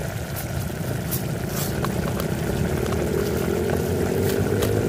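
Pot of tomato chili sauce simmering on a portable gas stove: a steady low rumble from the burner, with scattered small pops from the bubbling sauce.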